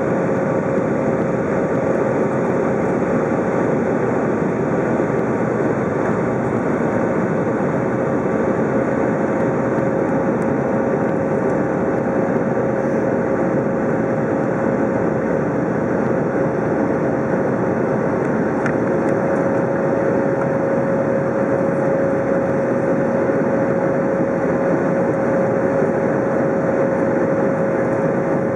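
Airbus A320 cabin noise in the climb after takeoff: the jet engines at climb power and rushing airflow, an even, unbroken roar with a steady droning tone over it.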